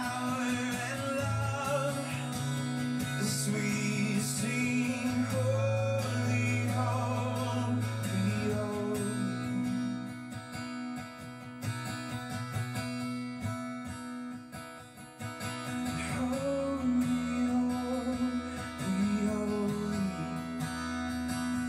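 Outro music: acoustic guitar with a singing voice over sustained bass notes, dropping softer for a few seconds in the middle.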